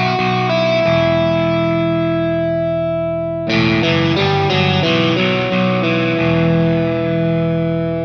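Instrumental music led by an effected electric guitar playing long, sustained notes, with a new phrase struck about three and a half seconds in.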